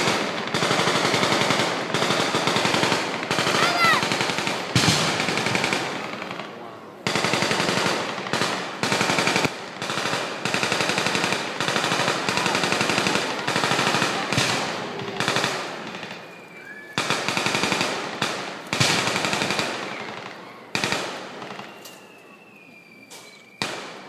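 Bursts of rapid automatic gunfire, several weapons firing at once in volleys of a few seconds that pause and resume, then thin out and die away over the last few seconds.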